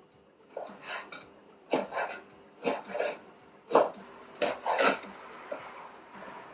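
A run of about eight short bumps and scrapes over the first five seconds, with a faint steady hum underneath: handling noise as the camera is picked up and repositioned over the chopping board.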